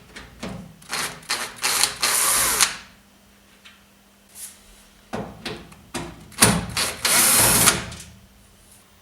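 Cordless drill-driver running in two short bursts, backing out the Torx screws that hold a washing machine's side panel, with clicks and knocks of handling between the bursts.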